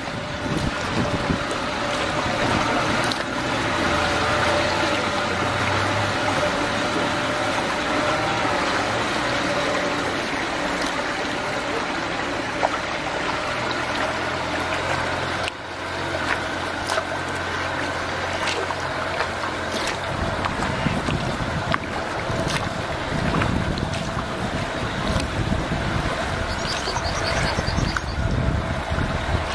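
Outboard motor of a small cabin cruiser running just ahead, its propeller churning the water, over a steady rush of water and wind. The motor's low hum drops away about two-thirds of the way through as the boat pulls off to the side.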